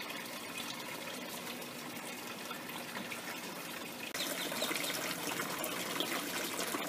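Water trickling steadily through PVC hydroponic grow towers, the circulating nutrient water running down the tubes. About four seconds in it gets suddenly louder.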